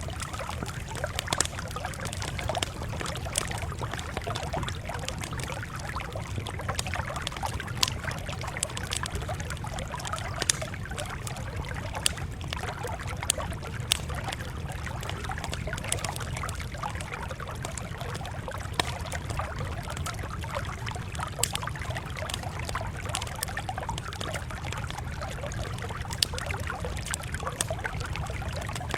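Campfire crackling: irregular sharp pops and snaps, about one every second or two, over a steady low rumble and hiss.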